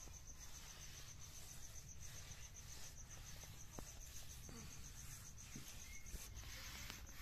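A cricket chirping in a high, steady, rapidly pulsing trill over faint low background noise.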